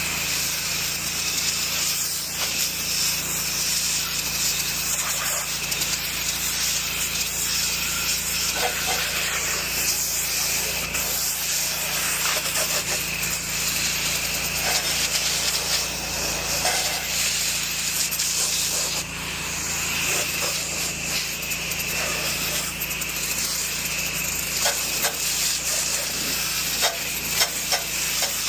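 Pressure washer spraying: a steady, loud hiss of the water jet, over the low, even hum of the machine's engine. The spray starts right at the beginning and dips briefly once, partway through.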